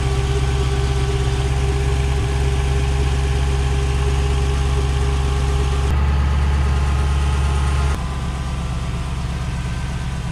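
Lexus GS400's 4.0-litre V8 (1UZ-FE) idling steadily. The sound shifts abruptly twice, about six and eight seconds in.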